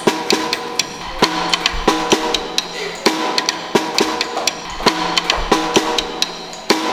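Background music: a rhythmic percussion track of drum and wood-block hits with short pitched notes, in a steady beat.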